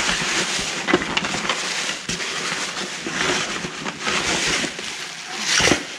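Bags and packaging rustling and crinkling as gloved hands rummage through them, continuous crackly handling noise with one louder rustle near the end.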